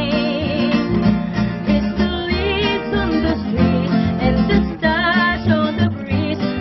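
Live acoustic band music: a woman singing with vibrato over two strummed acoustic guitars and a plucked upright bass.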